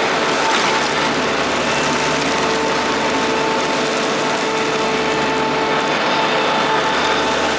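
Ride-on vacuum sweeper's Kubota D1105 three-cylinder diesel engine running steadily, with a steady whine over the engine noise.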